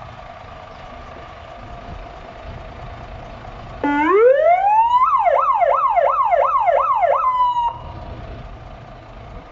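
Fire engine's siren sounding through its roof loudspeaker: about four seconds in it winds up in a rising wail, then sweeps rapidly up and down about three times a second for a couple of seconds, holds briefly and cuts off. The truck's engine idles underneath.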